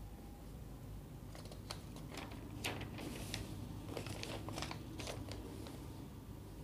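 Paper sheets of a printed exam paper rustling and crackling as the pages are turned and handled, a run of crisp crinkles from about one to six seconds in.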